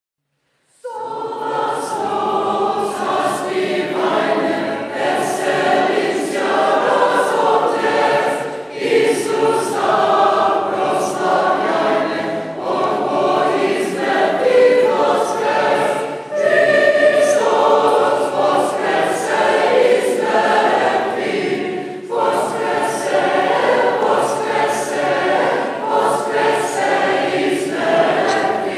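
Choir singing a cappella, a Byzantine Catholic Paschal chant, beginning about a second in.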